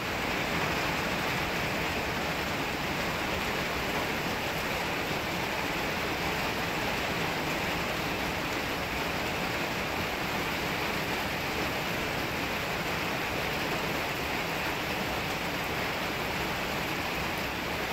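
Steady rain falling during a thunderstorm, an even hiss with no thunder or other sudden sound.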